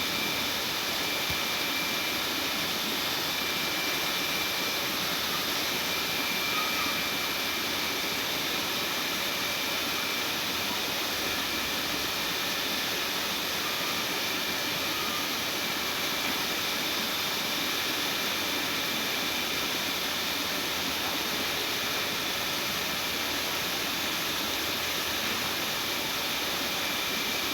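Steady, even rushing noise with no distinct knocks or clicks, like air or a fan running.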